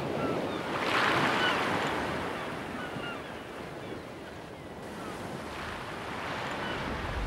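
Surf breaking and washing up on a sandy beach, swelling about a second in and again near the end.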